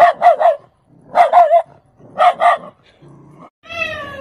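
A small dog barking sharply in three quick runs of two or three barks each. Near the end a quieter drawn-out pitched call follows.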